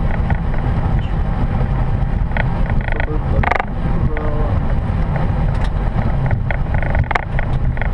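Steady low rumble in a Boeing 737 cockpit as the airliner slows on the runway after touchdown, its engines at idle, with a few short clicks over it.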